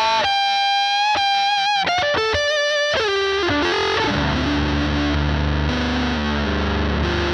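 Electric guitar through the Life Pedal V3's RAT-based distortion on its high-gain setting, with asymmetric clipping. For about three seconds it plays sustained single lead notes with bends and vibrato, then switches to heavy, low distorted chords.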